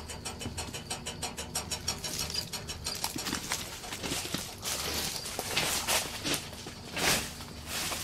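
Electromechanical signal relays inside a Pennsylvania Railroad-era trackside metal relay case clicking fast and evenly, about eight to ten clicks a second. About three seconds in, the clicking fades under irregular knocks and rustling.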